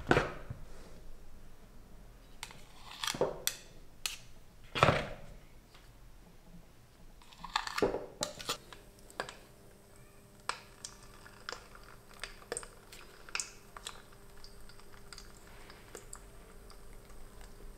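A metal spoon clinking and scraping as thick churro dough is spooned from a bowl into a piping bag: several separate knocks in the first eight seconds. Then churro batter frying in hot oil in a saucepan: a faint crackle of small pops over a faint steady hum.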